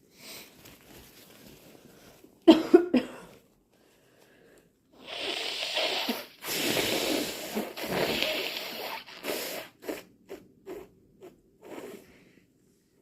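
A sick person coughs twice sharply, then blows their nose in two long, forceful blows, followed by a series of short puffs of breath.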